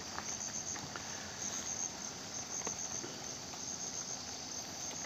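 Light rain pattering into a muddy puddle, with scattered single drops ticking, under a steady high-pitched insect trill that pulses.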